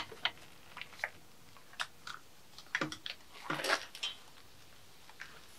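Scattered light clicks, taps and short rattles of parts being handled as the intake manifold of a BMW M50B25 engine is worked loose, with a brief cluster of scraping rattles about three to four seconds in.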